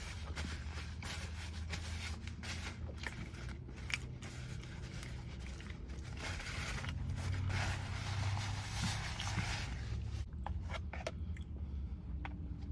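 Eating and food-handling noises: tearing, crunching and scraping with scattered clicks, over a steady low hum.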